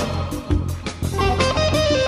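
Background music: an electric guitar lead line with bent notes over bass and a steady beat.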